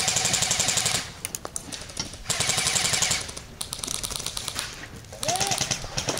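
Airsoft gun firing full-auto in three rapid rattling bursts, the last starting about a second before the end.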